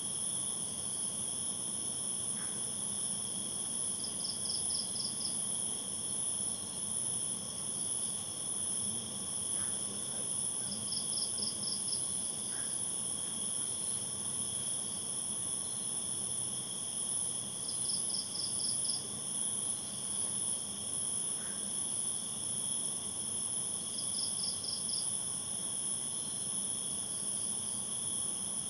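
Night insects: a steady high-pitched chorus of crickets, joined every six to seven seconds by a short pulsed call of about six quick chirps from another insect.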